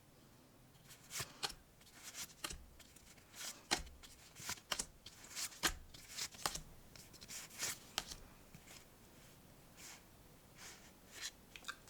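Pokémon trading cards being handled and slid over one another, a string of faint short papery flicks and rustles, about one or two a second, thinning out near the end.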